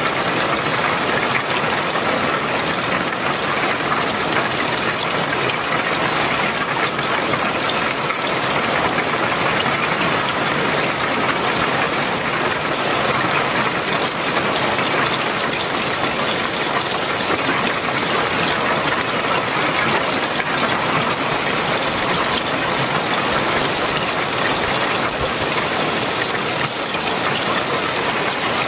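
Very heavy rain, with runoff pouring in streams off the edges of clay-tiled roofs and splashing below; a dense, steady rush of water.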